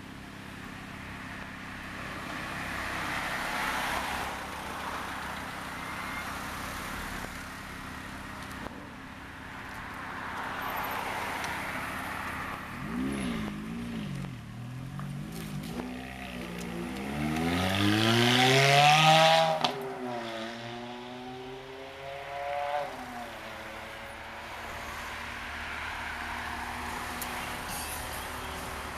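Sports car engine revving on the street: a few throttle blips, then a hard acceleration with the engine note rising steeply for about three seconds before it cuts off, and one more short rev after. Passing traffic hiss comes before it.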